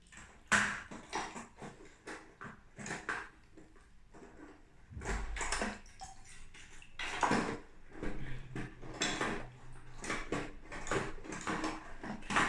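Irregular clattering knocks and rattles of a cheap plastic mechanical keyboard being handled and knocked about as it is wrecked, the sharpest knock about half a second in.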